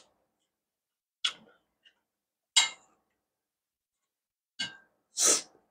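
Close-miked eating sounds as noodles are scooped with a plastic spoon from a steel bowl and eaten. Four short, separate noises with quiet gaps between; the last, near the end, is the longest and loudest.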